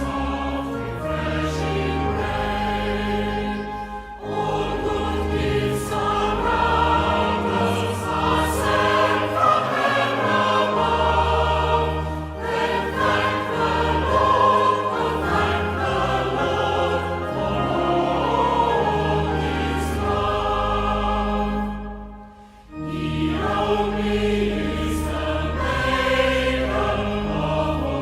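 Many voices singing a hymn together over held bass chords of an accompanying instrument, pausing briefly about three quarters of the way through before the next line.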